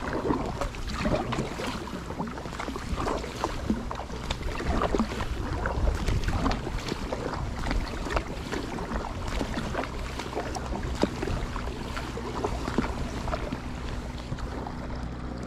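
Paddle strokes of an Intex Challenger K1 inflatable kayak splashing and dripping in the water, irregular and close, over a low wind rumble. A steady low hum comes in near the end.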